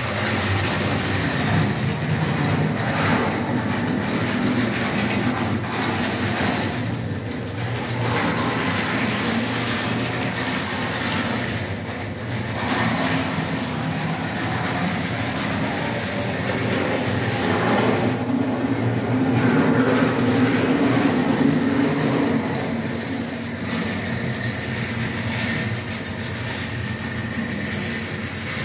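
Model train running on the layout's track: a steady rumble of small wheels on the rails with a constant high whine, swelling a little about two-thirds through.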